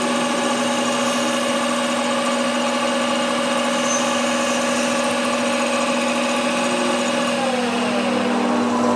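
Workshop machine motor running with a steady, many-toned hum; about seven seconds in, one of its tones slides down in pitch.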